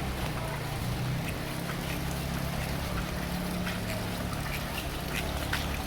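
Rain falling steadily, with scattered sharp drop ticks over an even hiss and a constant low rumble underneath.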